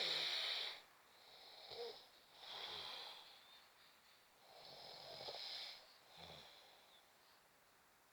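A sleeping person snoring: breathy snores about a second long, one every second or two, with a quieter gap near the end.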